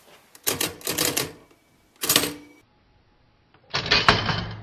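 Facit C1-13 mechanical calculator clattering in three short bursts of clicks and clacks as its keys and carriage are worked. The last burst comes as the key that shifts the carriage fully to the left is pressed.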